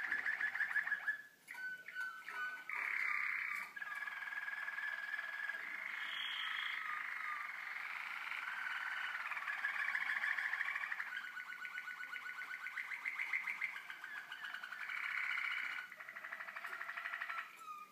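Young Waterslager (Malinois) canaries singing: a continuous run of rapid trills and rolls, with short breaks about a second and a half in and near the end.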